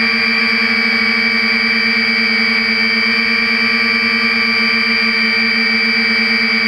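3DR IRIS+ quadcopter's four electric motors and propellers buzzing steadily, with a constant high whine, heard from the camera mounted on the drone in flight.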